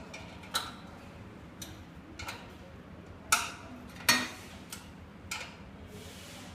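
Irregular clicks and knocks of screws being locked into the side frame of an inkjet plotter, about eight in all. The two loudest come a little past three and four seconds in.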